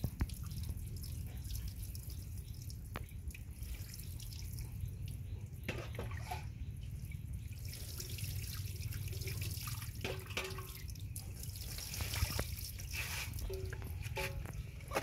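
Water poured from a plastic dipper splashing over a baby monkey and dripping and trickling off a plastic stool onto wet concrete, with scattered small clicks and splashes.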